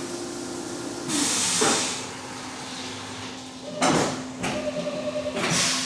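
Haas UMC 750 SS five-axis CNC mill running a program: a steady spindle tone that steps down in pitch about a second in, with bursts of hiss and a sharp clunk about four seconds in.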